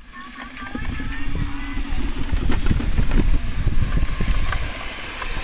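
Small electric motors of radio-controlled construction models running, with thin whines that slide in pitch, over an uneven low rumble and knocking.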